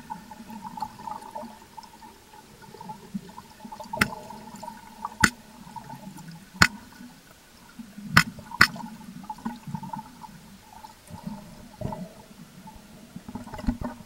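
Stingray making sharp clicks underwater: five clicks spaced about a second or more apart, the last two in quick succession, over a steady wash of underwater water noise. The clicks are thought by researchers to be a possible warning signal.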